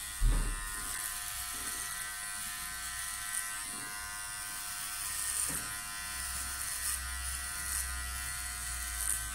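Powertec TR 1700 cordless hair clipper running steadily as it cuts short, thick hair at the nape with the No. 1 guard fitted. A brief thump comes just after the start.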